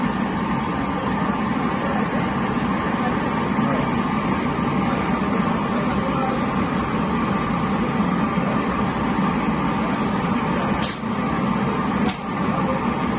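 Prize-draw machine running with a steady mechanical whir. Two sharp clicks come near the end.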